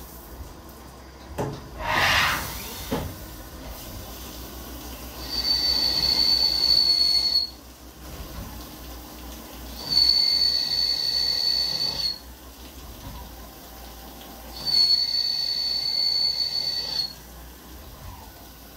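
Haas SL30 CNC lathe turning a part under flood coolant, with a steady hiss and splash of coolant. Three times the cut gives a steady high-pitched squeal lasting about two seconds, after a couple of short rushing hisses near the start.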